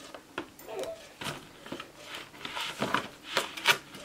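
Clear plastic clamshell grape container crackling and clicking as green grapes are handled and pulled off the bunch inside it, with irregular rustles that grow denser and louder in the second half as the plastic lid is lifted.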